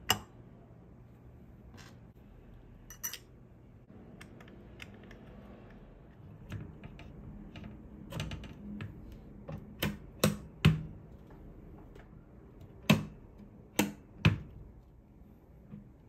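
White Corsair Dominator memory sticks being pushed into the DIMM slots of an Asus ROG Strix Z690-A motherboard, giving sharp plastic clicks as the sticks seat and the slot latches snap shut. There is one loud click at the very start, and several close together in the second half.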